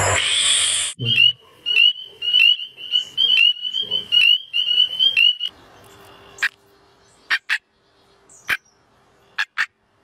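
Frogs calling: a quick run of high chirps, about three a second, stops about five seconds in. It is followed by a few short, sharp calls at scattered intervals.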